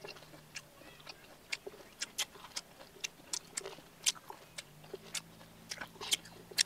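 Close-miked mouth sounds of chewing raw unripe banana: an irregular run of sharp little clicks, about three a second.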